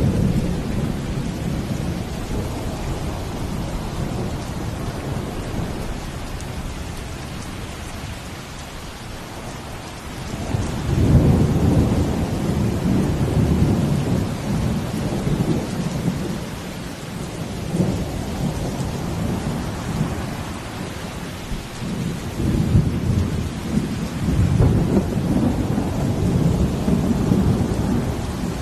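Steady falling rain, with deep low rumbles that swell up about ten seconds in and again through the last several seconds.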